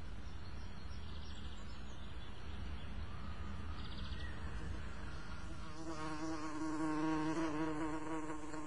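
Bee buzzing: a steady, even-pitched buzz that comes in about six seconds in and stops near the end, over faint hiss before it.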